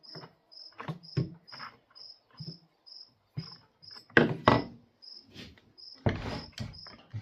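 A cricket chirping steadily, a short high chirp about twice a second, over the knocks and clatter of chainsaw parts being handled as the cover is fitted onto the saw. The loudest are two sharp knocks about four seconds in and a rattling scrape a little after six seconds.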